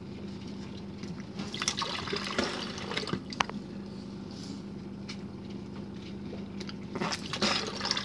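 Water slurping and gurgling through a dishwasher drain hose being sucked on by mouth to clear a suspected blockage, with a spluttering spit. A steady low hum runs underneath.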